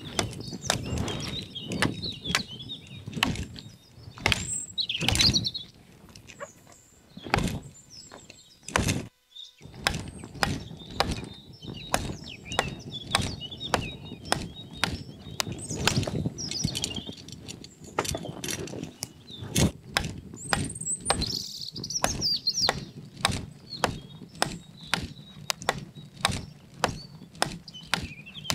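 A long series of sharp knocks, about one or two a second, with birds chirping between them.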